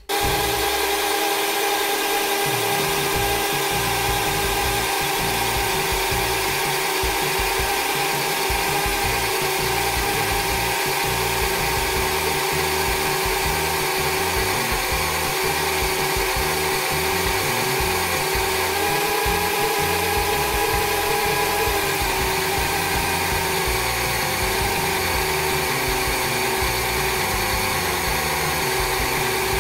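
Cordless drill starting up and spinning a flat glass lapping disc at a steady speed, a steady motor whine. A hair clipper's upper blade is held flat on the paste-coated glass, grinding against it.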